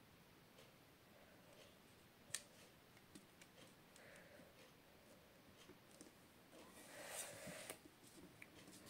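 Quiet paper handling: a glued paper panel being pressed and slid into place on a card base by hand, with a single small click about two seconds in and a short rub of paper on card near the end.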